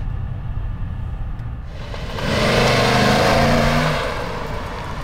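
Mercedes-AMG E63 S's 4.0-litre twin-turbo V8 pulling away in comfort mode: a low engine rumble, then about two seconds in the revs climb and the sound swells for a couple of seconds before easing off again.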